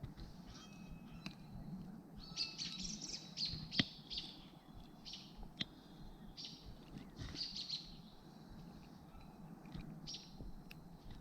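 Small birds chirping and calling in short bursts, with a few sharp clicks, the loudest about four seconds in.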